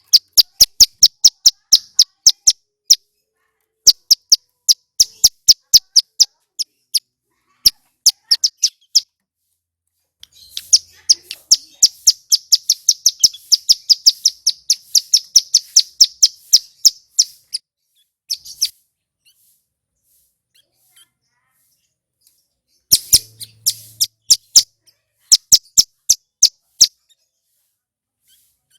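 Male ciblek gunung (hill prinia) singing: loud, sharp, high notes repeated in quick series of about five a second, broken by short pauses, with a long faster trill in the middle and a quiet spell before the last bursts.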